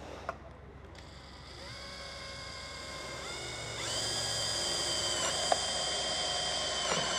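Cordless drill with a small twist bit boring through thin sheet metal. The motor's whine comes in about one and a half seconds in, rises in pitch and gets louder, then holds steady from about four seconds in and dips briefly near the end.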